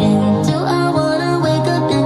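Music played through a Sony SRS-ULT10 (ULT Field 1) portable Bluetooth speaker in an audio demo: held bass notes under a melody, with a note sliding upward about half a second in.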